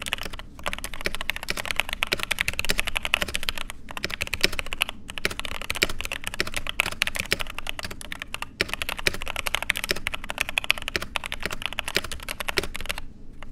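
Fast typing on a tape-modded GK75 mechanical keyboard with JWIC Ice White linear switches: a dense, continuous run of keystrokes, broken by a few short pauses.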